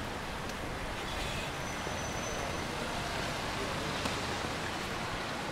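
Steady city street noise from road traffic: an even hiss with no single vehicle standing out. A faint high tone is heard briefly about two seconds in.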